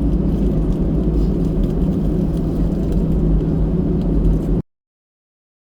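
Steady low rumble of a moving vehicle, which cuts off abruptly into silence about four and a half seconds in.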